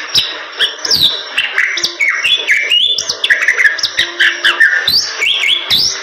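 Bali myna singing a loud, busy song of quick whistled notes that swoop up and down, mixed with many sharp clicks.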